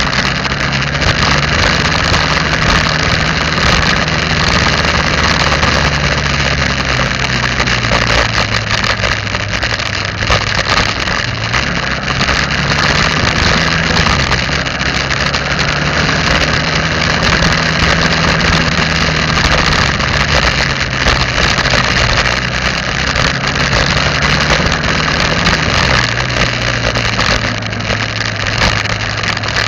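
Vehicle engine running while driving, its note shifting a little with speed, over a steady rush of wind and road noise.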